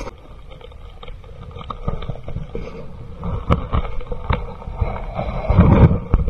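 Sea water sloshing and splashing around a camera held at the surface, with a low uneven rumble and scattered small knocks, and a louder splash near the end.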